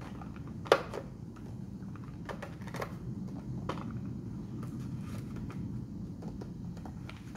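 Light clicks and taps of boxed soap bars being set into a clear plastic organizer tray, with one sharper click about a second in, over a steady low background hum.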